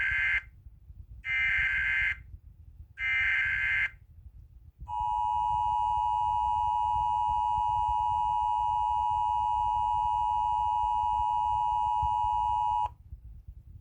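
Emergency Alert System tones. Three short data bursts of the SAME header, each about a second long, are followed by the steady two-tone EAS attention signal, held for about eight seconds and then cut off. Together they announce an incoming emergency bulletin, here a flash flood warning.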